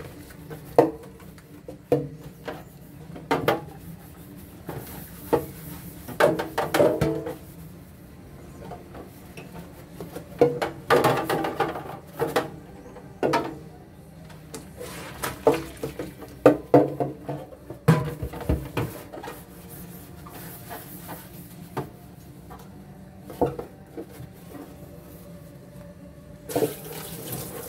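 Clear plastic storage bins being scrubbed with a soapy sponge and handled in a stainless steel sink, with irregular knocks and clatters of plastic on the sink. Near the end the tap is turned on and water runs steadily.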